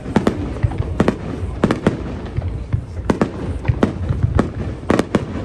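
Aerial firework shells bursting in quick, irregular succession: a dozen or so sharp bangs over a continuous low rumble.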